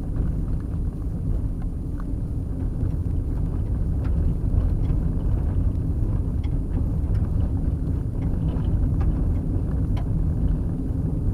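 Vehicle driving on a gravel dirt road, heard from inside the cabin: a steady low rumble of tyres and engine, with scattered light ticks from gravel or rattles.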